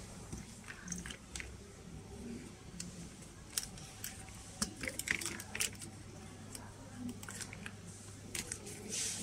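Irregular light clicks and rustles of collapsible silicone pet bowls being handled, knocking against each other and their hanging clip, over a low steady hum.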